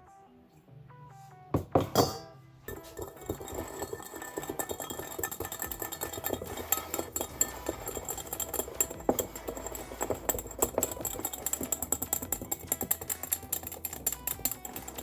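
Two knocks, then hot chocolate mix and hot water being mixed in a bowl: a fast, uneven clatter against the bowl over a low hum, with background music.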